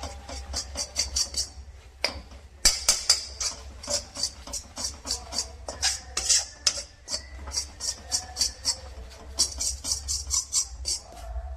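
A spoon scraping and stirring a thick, sticky melted jaggery mixture in a pan, in quick repeated strokes about three a second. There are a couple of sharper knocks against the pan about two seconds in.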